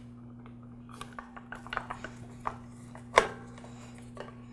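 Plastic pressure switch cover being pressed into place and its screw turned in with a screwdriver: scattered small clicks and scrapes, with one sharper click about three seconds in, over a steady low hum.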